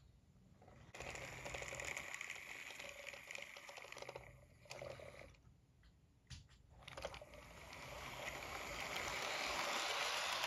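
On30 model train running along the track: a faint, steady rolling rush of wheels on rails and the locomotive's motor. It starts about a second in, drops away briefly just past the middle, then grows louder toward the end as the cars pass close by.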